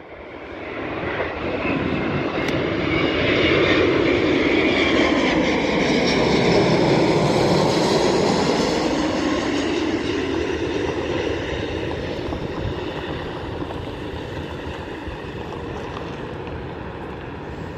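Airbus A350-900 on final approach, its Rolls-Royce Trent XWB engines passing low overhead. The sound builds to a peak about seven or eight seconds in, the pitch slides down as the aircraft goes over, and it then fades slowly as the aircraft moves away.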